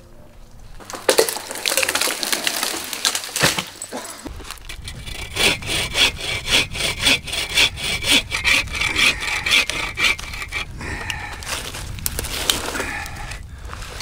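Folding hand saw cutting through a fallen log, with quick back-and-forth rasping strokes, about two a second.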